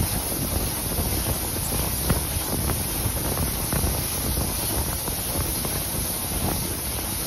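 Wind buffeting the microphone over the steady running noise of a steam-hauled train at speed, with a few sharp, irregular knocks from the wheels on the track.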